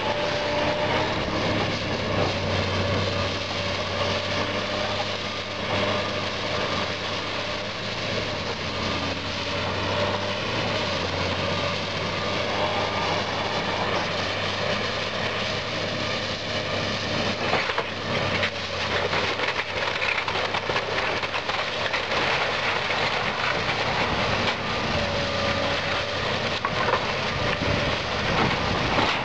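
Link-Belt 210 tracked excavator's diesel engine running under load as its bucket tears into a wood-frame house, with wood cracking and debris crashing down, the cracks coming thickest about two-thirds of the way through.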